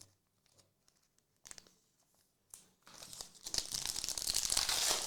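A trading-card pack wrapper being torn open and crinkled: a few short crackles, then a dense run of crinkling over the last two seconds.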